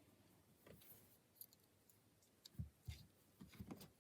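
Faint, scattered metal clicks of a rake and tension wrench working the pin stack of an old brass Burg 217/50 padlock, with a short run of clicks near the end.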